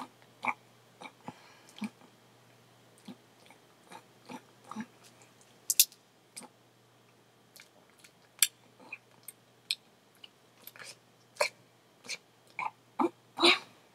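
Fox squirrel gnawing and chewing a peanut in the shell: irregular sharp crunches and clicks as the shell is bitten, with a few louder cracks toward the end.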